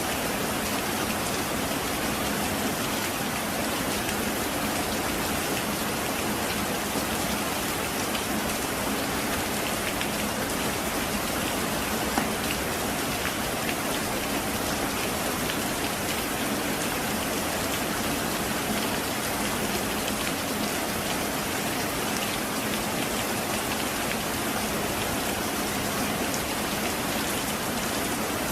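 Heavy rain falling steadily, a dense even hiss. A single sharper tick stands out about twelve seconds in.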